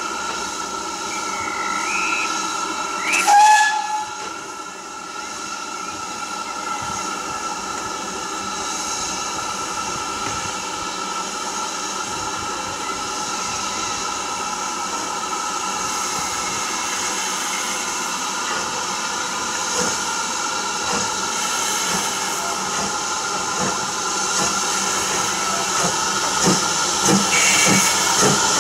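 BR Standard Class 4 2-6-4 tank engine 80104 standing with a steady hiss of steam; about three seconds in it gives one short, loud whistle blast. Near the end it starts away, with chuffing exhaust beats and the hiss of open cylinder drain cocks.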